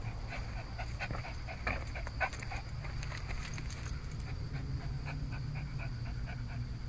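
Small terrier breathing in quick, short puffs close to the microphone, several a second, as it noses through the grass.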